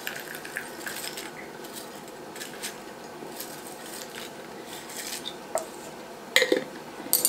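Dried bell pepper pieces tapping and rattling as they are tipped out of a glass canning jar, with small scattered clicks and sharper glass-and-lid clinks about six and a half seconds in and again near the end.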